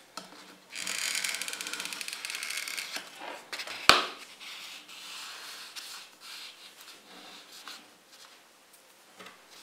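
A hand rubbing and pressing on the rim of a paper speaker cone, a scratchy rustling, with one sharp knock about four seconds in and fainter rubbing after it.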